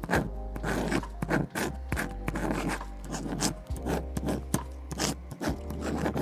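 Pen or pencil scratching across paper in quick, uneven strokes, over lo-fi background music with a steady bass line.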